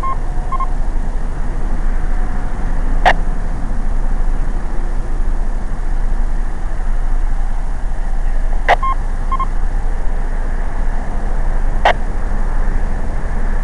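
A ham radio's speaker between transmissions: steady rumble and hiss, with a sharp click three times as stations key and unkey. A short double beep comes twice, once just after the start and once about 9 seconds in, typical of a repeater's courtesy tone.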